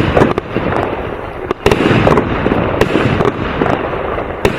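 Aerial firework cake firing: irregular sharp bangs over a dense, continuous crackle.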